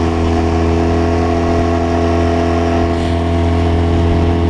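Boat's outboard motor running steadily at a constant speed.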